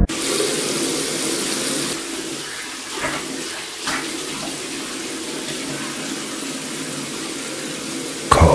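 Steady rush of running water, a little louder and brighter for the first two seconds, with two short knocks about three and four seconds in. A louder sound breaks in just before the end.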